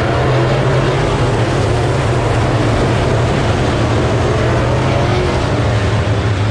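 Race car engines running together steadily, several at once as cars lap the track, with their pitch wavering a little up and down.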